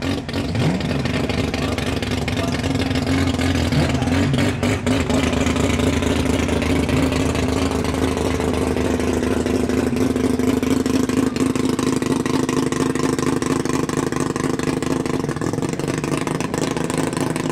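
Chevrolet Corvette's V8 idling steadily at the drag-strip starting line while staging, with a brief rise in revs in the first second.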